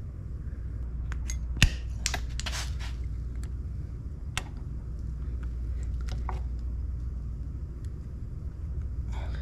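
Hands working PEX tubing and brass Sharkbite push-to-connect fittings: scattered light clicks and rubbing of plastic pipe against brass, with one sharp click about a second and a half in, over a steady low hum.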